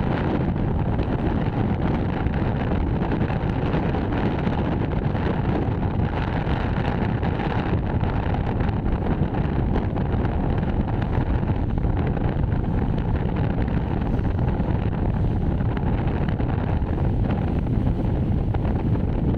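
Strong wind buffeting the microphone: a steady low rushing rumble with no breaks.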